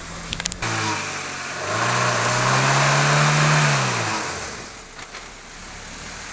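Honda HR-V engine revving up, held high for about two seconds, then dropping back, over a steady hiss of wind and tyres. A few clicks come just before the revving begins.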